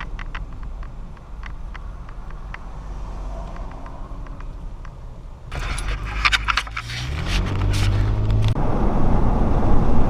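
Car driving, heard from inside the cabin: a low engine and road rumble with light clicking and jangling. About five and a half seconds in there is a burst of rattling, then the engine note rises as the car speeds up, and louder road noise follows.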